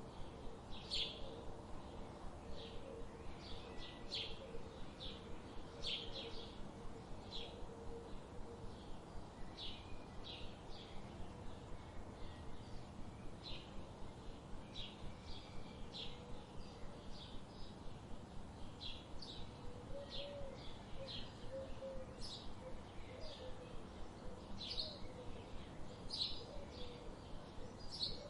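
Small birds chirping: short, high chirps about one every half second to second, over a steady background hiss, with a fainter low wavering call at times.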